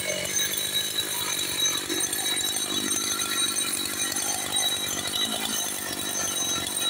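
Husqvarna chainsaw's two-stroke engine running steadily, without a break.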